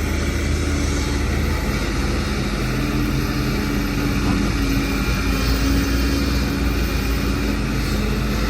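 Diesel engines of heavy construction machinery running steadily, a continuous low drone with an engine hum that wavers a little in strength.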